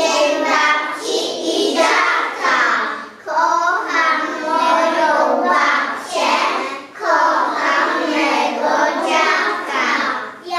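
A group of preschool children singing together in unison, in phrases of three to four seconds with short breaths between them.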